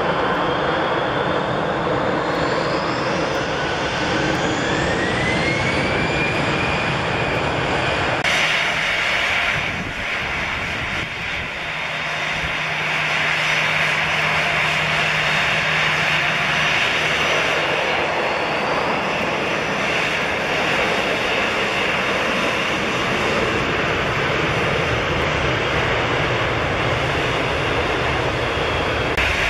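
Finnair Airbus A320's jet engines on landing, their whine rising in pitch over several seconds. About eight seconds in the sound changes abruptly to a Lufthansa Airbus A320neo taxiing: its jet engines give a steady high whine over a low hum.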